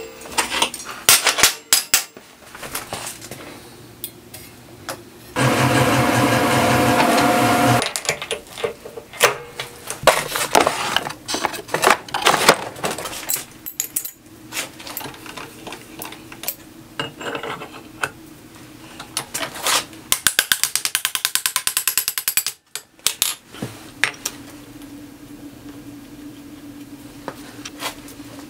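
Metalworking sounds: steel flat bars and tools clanking on a steel bench and in a drill-press vise. A machine runs loudly for about two and a half seconds near the start, a quick run of rapid, even ticks comes about two thirds of the way in, and a drill press motor hums steadily near the end.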